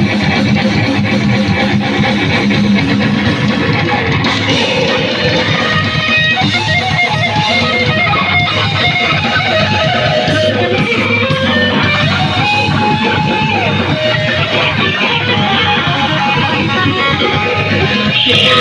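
A live heavy metal band playing loud, continuous distorted electric guitar with fast, dense drumming.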